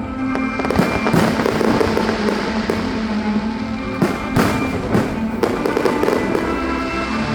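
Fireworks going off: a run of sharp bangs and crackles at uneven intervals, with a cluster of the strongest bangs between about four and five and a half seconds in. Music with held tones plays underneath.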